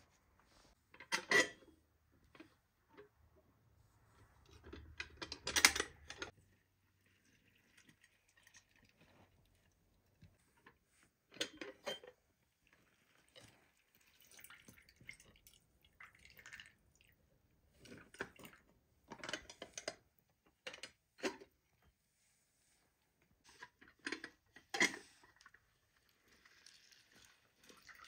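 Oranges being peeled by hand and squeezed in an aluminium hand-lever citrus press: scattered short clicks and clanks of metal, with juice dripping into a metal bowl.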